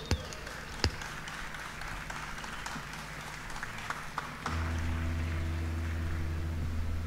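Concert crowd applauding and cheering after a song ends. About four and a half seconds in, a steady low drone comes in over the applause and holds.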